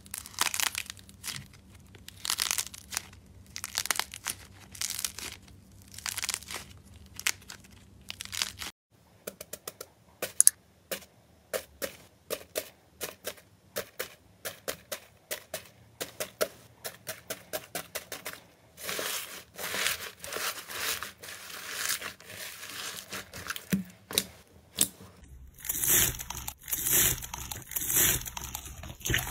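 Slime being worked by hand in three clips. First a soft white slime is squeezed and pulled apart in irregular squishy strokes. After a cut about nine seconds in, fingers press into pink floam, its foam beads giving many sharp little pops and crunches. Near the end, after another cut, clear green slime with white foam beads is pressed in louder squishes about once a second.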